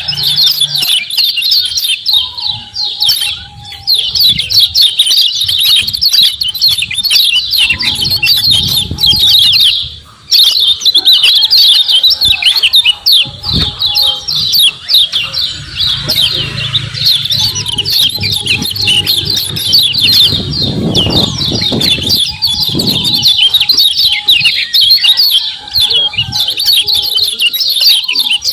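Kecial kuning white-eyes giving rapid, high 'ciak ciak' chirps in a dense, unbroken stream, with a short break about ten seconds in.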